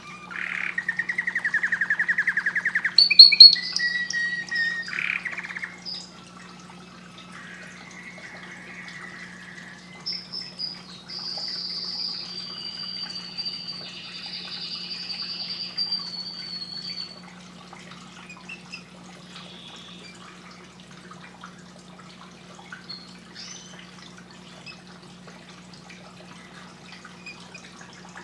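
Caged canary singing: a fast rattling trill, then sharp high notes and a long high warbling phrase, after which only a few faint chips are heard for the last ten seconds or so. A steady low hum runs underneath.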